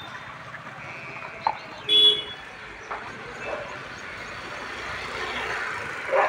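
A flock of sheep moving along a road: short bleats about one and two seconds in over steady outdoor noise, and a vehicle passing near the end.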